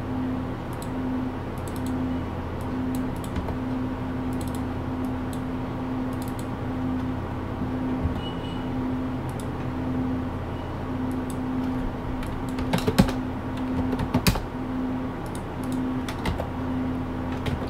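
Clicking of a computer mouse and keyboard: scattered light clicks, with a few sharper, louder ones about two-thirds of the way through. Under them runs a steady low electrical hum with a pulsing tone.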